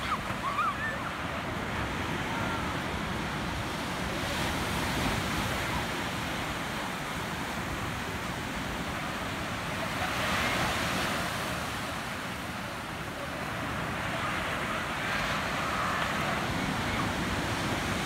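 Sea surf breaking on a sandy beach: a continuous rushing wash of waves, swelling louder as bigger breakers crash about ten seconds in and again near the end.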